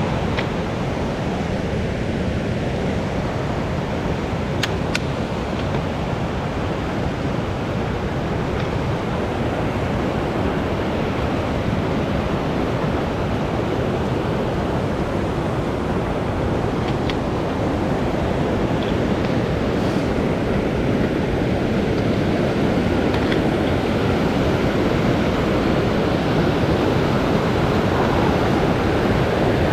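Steady rushing water, an even noise without rhythm, with a few faint ticks over it.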